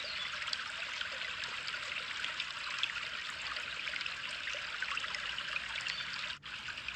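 Steady running, trickling water, like a small stream, with a fine crackle through it and a brief dropout about six and a half seconds in.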